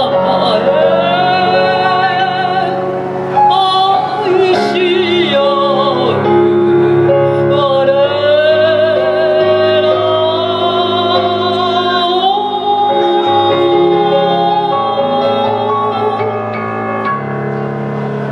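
A woman singing a Japanese-language chanson ballad live into a microphone, holding long, climactic notes with wide vibrato over a backing accompaniment. Her voice stops about twelve seconds in, and the accompaniment plays the closing chords alone, fading near the end as the song finishes.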